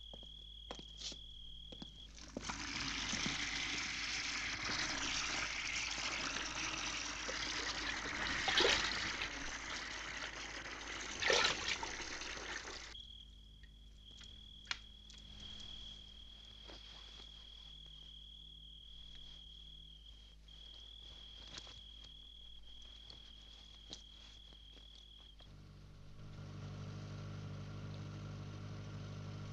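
Water running from an outdoor tap for about ten seconds, with a cricket trilling steadily before and after it. A little over 25 seconds in, a car engine's steady low drone takes over.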